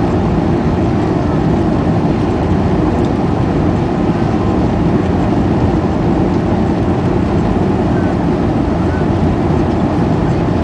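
Steady, loud rumble of engine and rushing-air noise inside the passenger cabin of a Boeing 737-400, whose engines are CFM56-3 turbofans.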